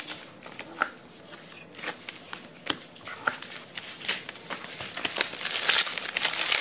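Thin plastic card sleeves and bags crinkling as trading cards are handled and shuffled, with scattered light clicks and rustles, getting busier near the end.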